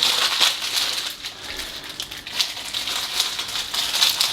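Hands handling the doorbell and its accessories: plastic rustling and crinkling with scattered small clicks.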